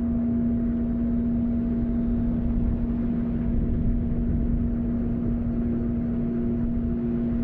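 A steady low drone: one held tone over a rumbling hiss, with a fainter, higher tone coming and going near the end.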